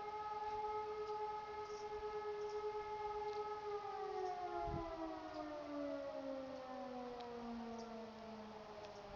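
E57 electromechanical siren holding a steady tone of the fire alarm signal. From about four seconds in it winds down, the pitch sliding steadily lower and fading as the rotor slows after the motor is cut.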